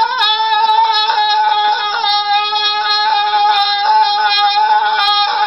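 One person's voice holding a single long, loud, high-pitched scream of excitement at a near-steady pitch, wavering slightly.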